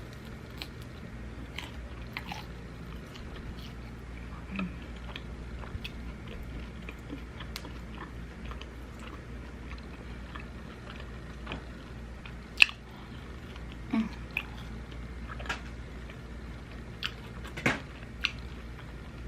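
Close-up eating sounds: chewing and biting into fried food, with scattered sharp crunchy clicks and mouth smacks, the loudest about two-thirds of the way through.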